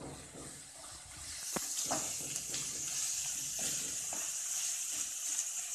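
Onions, green chillies and curry leaves sizzling in hot oil in an aluminium kadai, stirred with a perforated metal spatula that clicks and scrapes against the pan. The sizzle grows louder about a second in.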